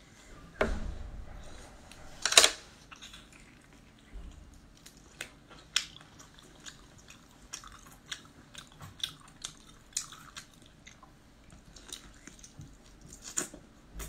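A woman biting and chewing soft seafood meat close to the microphone: irregular short mouth clicks and smacks, with one loud sharp click about two and a half seconds in.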